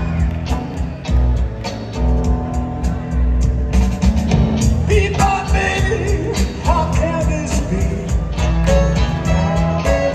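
Live rock band playing a song: electric guitar, piano and keyboards, drums, with singing coming in about halfway through.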